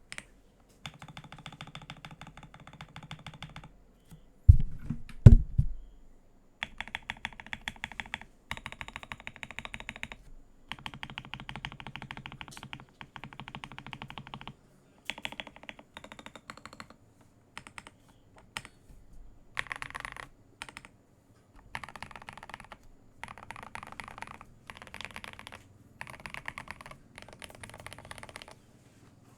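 Typing on a Keydous NJ80 mechanical keyboard with a brass plate, lubed Gateron Yellow Pro linear switches, foam and tape mods and AKKO SAL-profile keycaps. It comes in bursts of rapid keystrokes with short pauses between them, and a few heavy low thumps about four to five seconds in.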